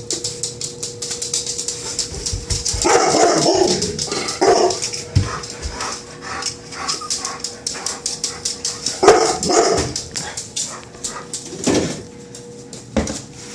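Dogs barking and yipping in short bursts, about six barks in all, over a continuous rapid ticking and a steady hum.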